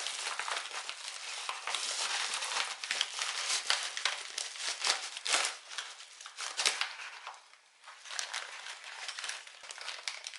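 Packaging crinkling and crackling as small lamp bulbs are handled and unwrapped, an irregular run of quick crackles with a brief pause about three quarters of the way through.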